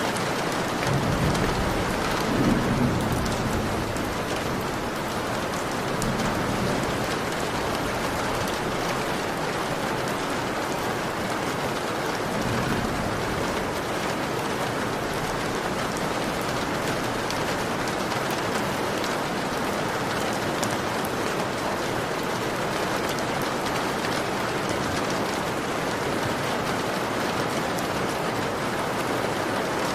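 Heavy rain pattering steadily on a window pane, an even hiss throughout. A few low rumbles swell under the rain in the first half.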